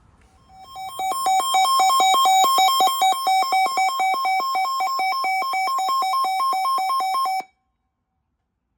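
Weather alert radio's alarm sounding for an incoming severe thunderstorm warning: loud, rapid electronic beeps alternating between two pitches, about six a second, that stop abruptly.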